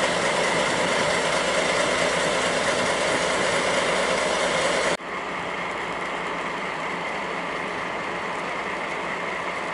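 Steady noise of falling rain with a low mechanical hum under it. About halfway through it drops abruptly to a slightly quieter steady noise.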